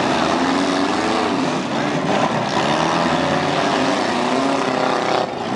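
Several compact cars' engines revving hard during a demolition derby heat, their pitch rising and falling as the cars accelerate and back off.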